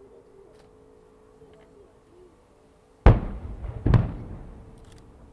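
Two aerial firework shells bursting less than a second apart, about three seconds in, each a sudden loud bang with a low rumbling tail.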